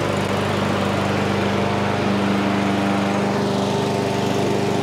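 Mountfield petrol lawnmower's single-cylinder four-stroke engine running steadily, just after start-up.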